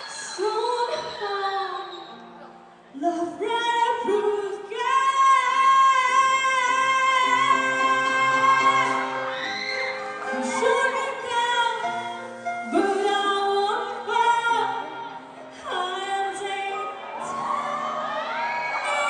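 A woman singing into a microphone over musical accompaniment, holding some long notes.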